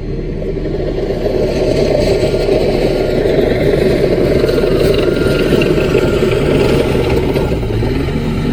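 Small CAT bulldozer's diesel engine running steadily with some clatter, growing a little louder about a second in.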